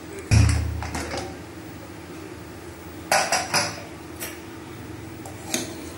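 An aluminium pressure cooker being opened: a heavy thump about half a second in, then two sharp metal clanks a little after three seconds as the lid is handled and set down, and a few light clicks.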